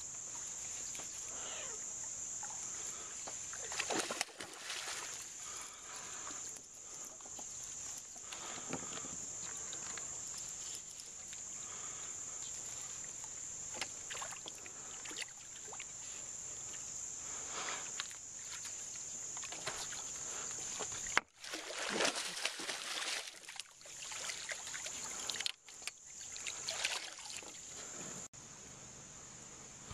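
A steady, high-pitched chorus of insects, with intermittent splashing and knocking from a bass being fought and landed beside a small boat. The splashing is loudest and most frequent from about 21 to 27 seconds in.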